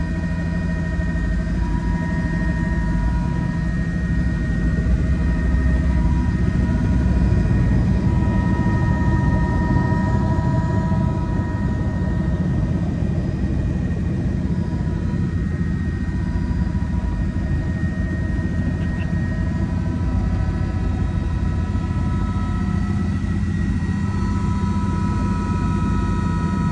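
Helicopter engine and rotor heard from inside the cabin: a loud, steady low drone with a faint, steady high whine over it.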